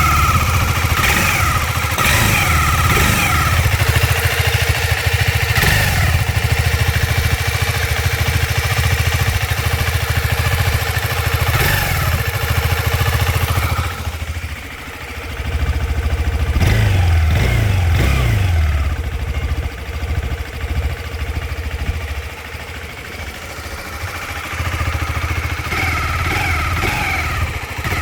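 KTM 390 Adventure's single-cylinder engine idling and blipped several times, with a steady high whir over the engine note. The whir comes from a cam chain tensioner set too tight after a valve lash adjustment.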